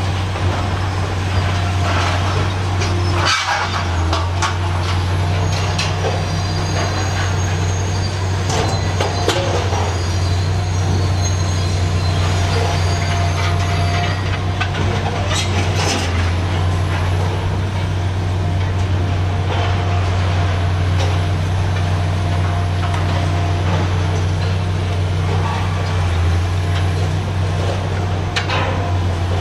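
Heavy excavator diesel engine running steadily under hydraulic load, a constant low drone, with a few sharp metallic clanks and bangs scattered through it as the scrap shears cut and handle steel girders.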